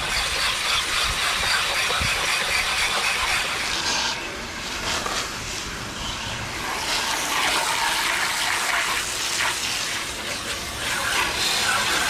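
Garden hose spray nozzle jetting water onto a disassembled window air conditioner's coils and housing, rinsing off the bleach-and-soap cleaner. It is a steady loud hiss that wavers in level as the spray moves.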